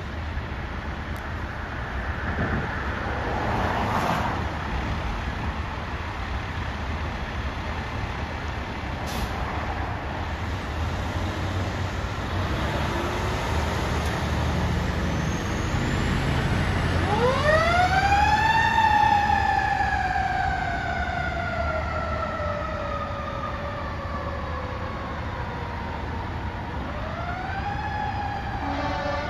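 Fire engine's motor rumbling as the truck pulls out and passes, then its siren starting about two-thirds of the way in: a quick rise, then a long slowly falling wail, winding up again near the end. The engine is running its lights and siren on an emergency response.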